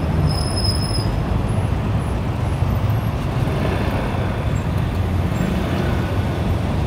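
Dense city traffic circling a cobblestone roundabout: car engines and tyres on the cobbles making a steady rumble, with a short high-pitched squeal about half a second in.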